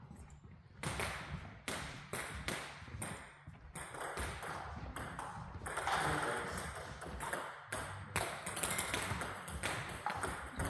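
Table tennis balls clicking off bats and tables in quick, irregular succession, with rallies running on two tables at once.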